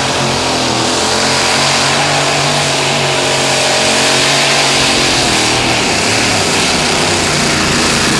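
Multi-engine supercharged modified pulling tractor running at full power under load as it drags a pulling sled, a loud, steady engine note with a slight rise and fall in pitch midway.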